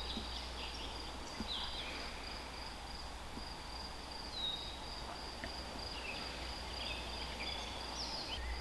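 Quiet outdoor garden ambience: a steady high insect trill runs throughout, with a few short scattered bird chirps over a faint low rumble.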